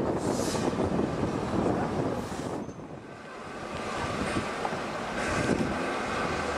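Steam locomotive running along the line with its train, a steady rumble of engine and wheels. Gusts of wind hit the microphone twice in the first few seconds.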